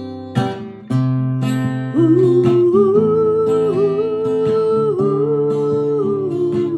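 Acoustic guitar strummed in a slow song, with one long, slightly wavering melody note held over the chords from about two seconds in until near the end.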